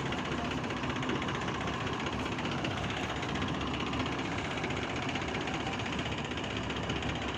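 Combine harvester's diesel engine running steadily.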